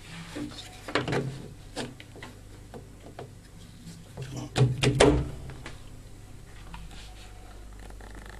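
Plastic clicks and knocks as a mains plug is handled and pushed into a power strip socket: a few knocks about a second in, and a louder cluster of clicks about four and a half to five seconds in.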